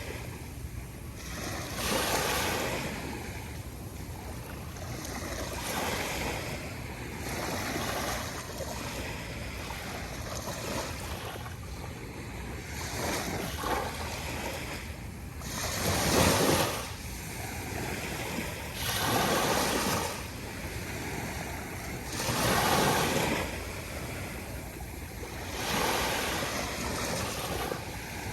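Small ocean waves breaking on a sandy shoreline: a steady wash of surf with a louder swell of breaking water every few seconds, the biggest about halfway through. Some wind on the microphone.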